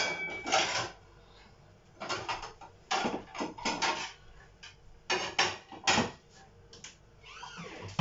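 Plates and kitchen cupboards being handled: a series of separate short clatters and knocks with quiet gaps between them.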